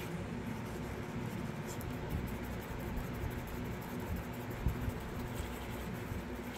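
Wooden stir stick scraping and swirling around the inside of a small plastic cup, stirred fast to mix mica pigment powder into epoxy resin. The scraping goes on steadily over a low hum.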